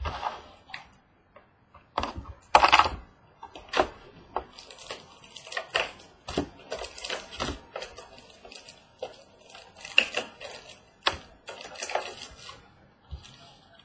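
Sealed box of trading cards being unwrapped, opened and its cards handled: irregular crackles, rustles and clicks of packaging and card stock all through.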